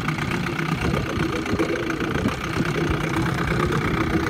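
Evinrude 7.5 hp two-cylinder two-stroke outboard motor idling steadily, freshly started.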